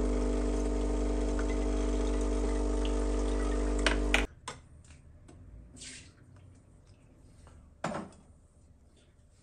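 AEG espresso machine's pump running steadily as it pushes hot water through to warm up, then cutting off suddenly about four seconds in. Faint clicks follow, and a single knock comes near the end.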